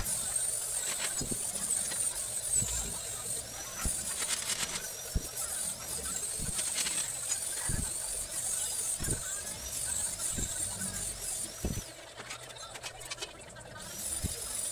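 Short, dull knocks of steel tubing being handled and set against a tubular frame, every second or two. Underneath runs a continuous high, wavering squeal.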